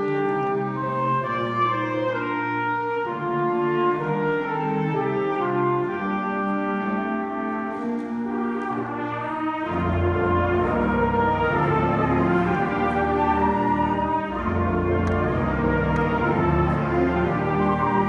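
School concert band playing a brass-led passage of sustained chords. About ten seconds in, the low instruments come in and the sound grows fuller and a little louder.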